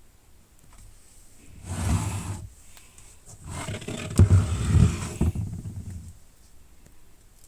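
Hard plastic tool case being handled: two bursts of rumbling scraping, the second longer, with a few sharp clicks in it.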